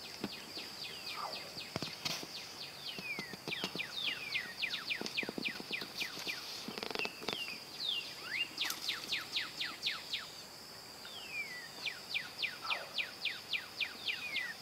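A bird calling in runs of quick, sharply falling whistled notes, about four a second, pausing briefly near the end, over a steady high-pitched insect buzz.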